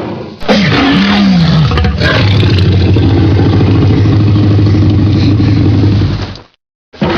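Dinosaur sound effect: a loud roar that falls in pitch, then settles into a long, steady, low growl and cuts off abruptly near the end.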